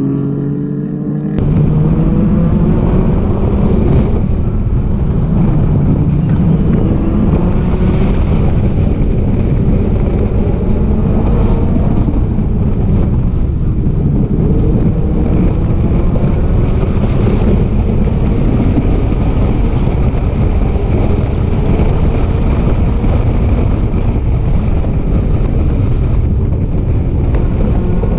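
Historic saloon race cars accelerating past in a pack, then, from about a second in, one car's engine heard onboard at racing speed. Its note climbs in pitch again and again and drops back at each gear change, over a dense low rumble.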